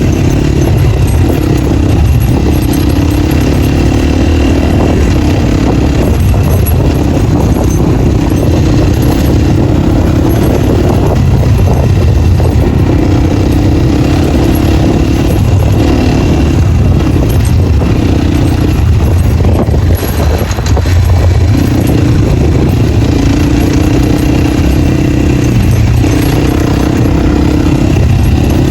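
Off-road motorcycle with no dB killer in the exhaust, ridden on a trail: a loud, open engine note that rises and falls in pitch every few seconds as the throttle opens and closes, dipping briefly about twenty seconds in.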